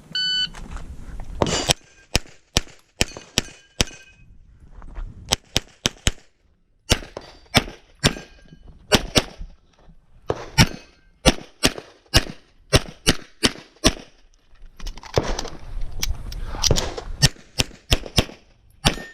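An electronic shot timer beeps once, then a CZ SP-01 9mm pistol is fired through a USPSA stage. The shots come in rapid pairs and strings, clustered with short pauses between target arrays and with fast strings near the end.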